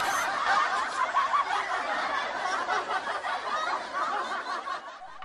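A group of people laughing together, many voices overlapping, starting abruptly and slowly fading out over about five seconds.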